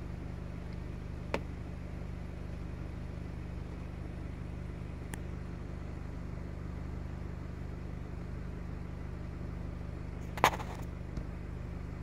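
Car engine running steadily with a low, even hum, heard from inside the car. A few faint clicks, and a sharper click about ten and a half seconds in.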